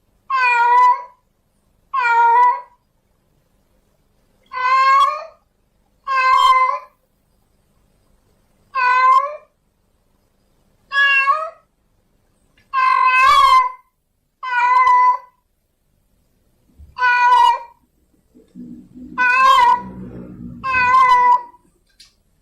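Domestic cat meowing over and over, about eleven short calls a couple of seconds apart: a female in heat calling for a tom. A low rustling noise runs under the last few calls.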